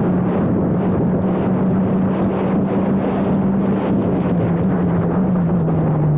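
Formula Abarth single-seater's turbocharged 1.4-litre four-cylinder engine running hard at steady high revs, its pitch sagging slightly near the end.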